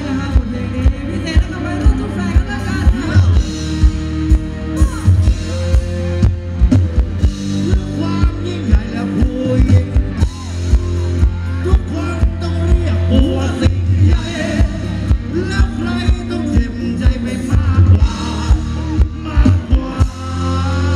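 Live Thai ramwong band music played loudly over a PA: a heavy bass drum beat about twice a second under a wavering melody and a singing voice. The drum beat drops out near the end.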